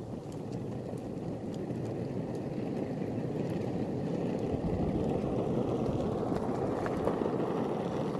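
Koowheel D3M mini electric longboard rolling along a paved street: a steady rumble of the wheels on the road, growing louder over the first few seconds as it picks up speed.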